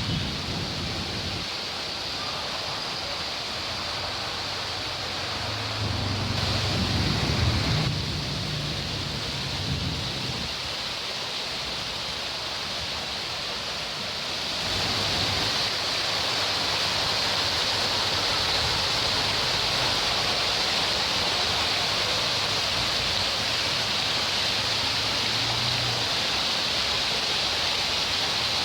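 Heavy rain falling in a steady hiss that grows louder about halfway through, with a low engine hum under it at times.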